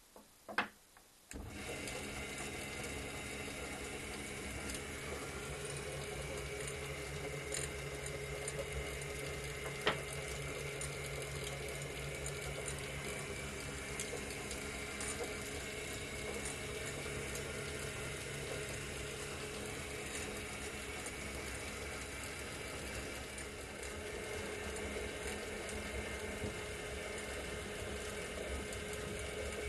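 A homemade glass lathe's electric motor and chain-and-sprocket drive start after a couple of clicks, about a second in, and then run steadily, turning the chucks. There is a constant hum with faint ticking from the drive.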